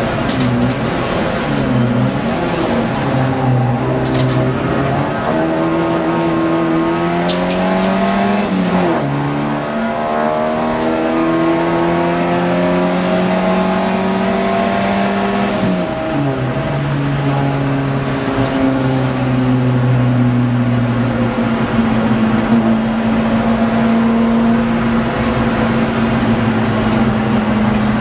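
Ford Fiesta XR2 race car engine heard from inside the cabin under racing load, its pitch climbing with the revs and dipping sharply twice before running fairly steady near the end.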